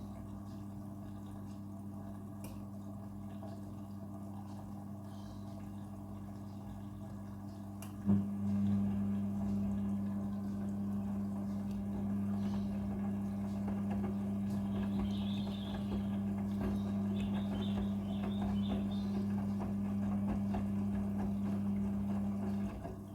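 Midea front-loading washing machine humming steadily with water running. About eight seconds in there is a click and the hum grows louder, then it drops back just before the end.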